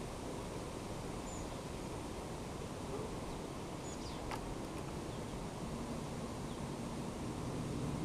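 Steady outdoor background noise with a few faint, short, high bird chirps and one sharp click about four seconds in; a low hum comes in near the end.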